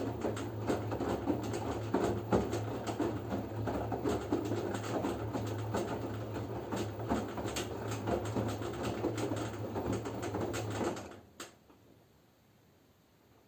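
LG F10B9LD front-loading washing machine in its second rinse: the drum turns the wet laundry with irregular swishes and soft knocks over a steady motor hum. About eleven seconds in the drum stops, followed by a single click.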